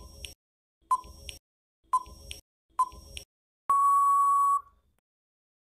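Quiz countdown timer sound effect: four short ticking beeps about once a second, then one long steady beep of about a second that signals time is up.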